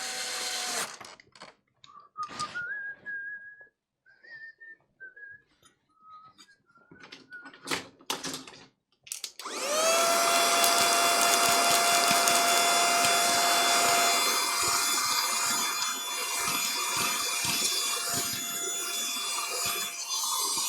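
A few light clicks and faint short notes, then about halfway through a hot-air rework station's blower starts: its whine rises quickly, then holds a steady pitch under a loud, even rush of air.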